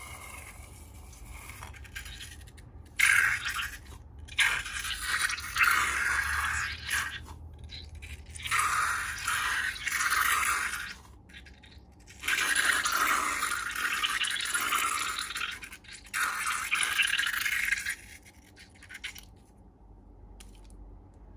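Slime being mixed and worked by hand: wet, scratchy scraping and squelching in about five bursts of one to three seconds, with short pauses between.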